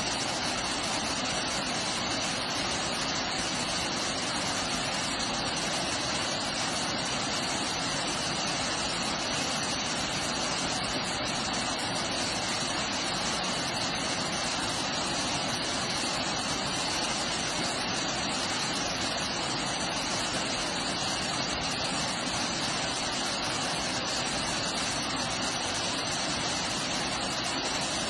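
Water pouring into a river: a steady, unbroken rush of falling and flowing water.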